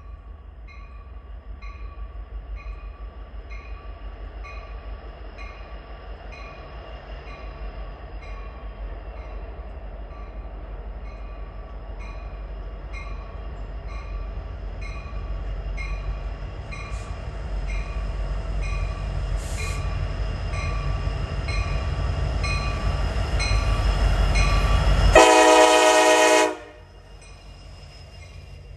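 EMD SD70AC locomotive's 16-cylinder two-stroke diesel pulling a freight train, its low rumble growing louder as it approaches, with a bell ringing steadily about twice a second. About 25 seconds in, the air horn sounds one blast of about a second and a half, and the engine rumble drops away.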